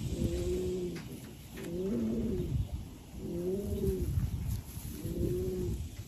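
Racing pigeon cooing: four low, drawn-out coos of about a second each, every one rising then falling in pitch, roughly a second and a half apart.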